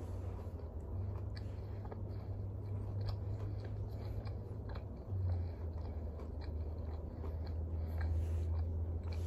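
Close-up biting and chewing of a piece of chicken sandwich, with many small wet mouth clicks, over a steady low hum.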